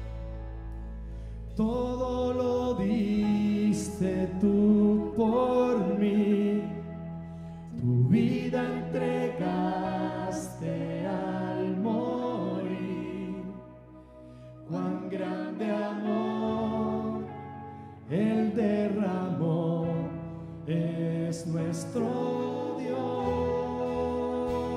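Worship song: voices singing over instrumental accompaniment, coming in about a second and a half in over a held chord, in phrases with short breaks between them.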